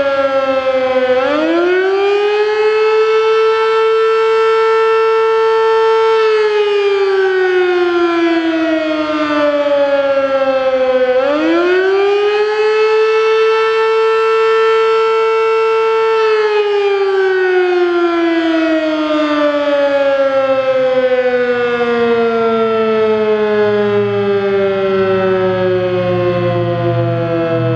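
Sterling Model M 8/16-port electromechanical siren sounding the attack (wail) signal. Its tone falls, climbs back to a steady high pitch and holds for about five seconds, falls and climbs to hold again, then slides down in a long slow fall. A low hum shows beneath it during that last fall.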